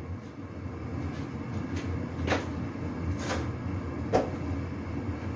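Three sharp clicks and knocks of kitchen handling, about a second apart, over a steady low hum.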